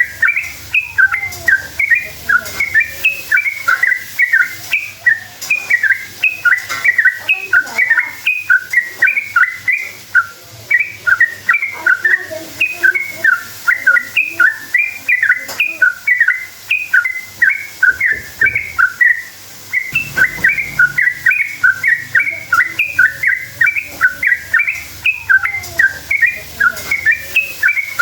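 Yellow-vented bulbul (trucukan) singing continuously in rapid, bubbly phrases of short up-and-down notes, with brief breaks about ten and twenty seconds in.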